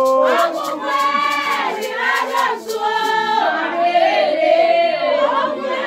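A group of voices, women's voices prominent, singing a Vodou ceremonial song together.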